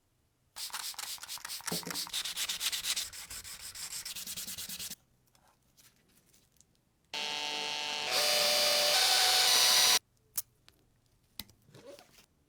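Hand sanding with quick back-and-forth strokes for about four seconds. After a pause, a small motorised tool runs steadily for about three seconds and gets louder partway through. A few light clicks follow near the end.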